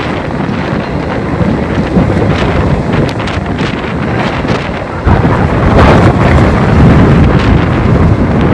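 Typhoon wind buffeting the microphone in a steady roar of gusts, which grow stronger about five seconds in.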